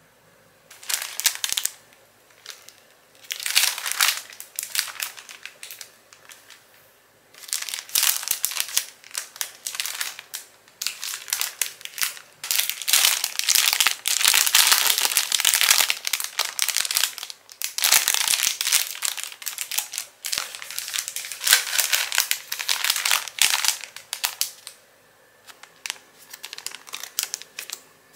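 Plastic bags and packaging crinkling in irregular bursts as they are handled, loudest around the middle and dying away near the end.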